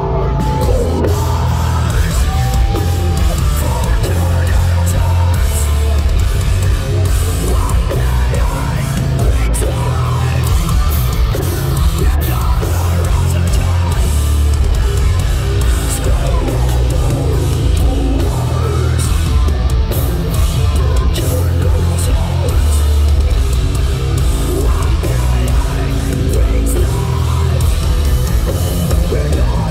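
Metal band playing live: distorted guitars, bass and drum kit, loud and continuous with a heavy bass.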